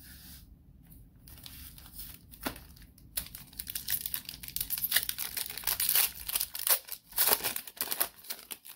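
Quiet handling at first. Then, from about three seconds in, the foil wrapper of a Panini Playoff football-card pack is torn open and peeled back, crinkling in rapid crackles.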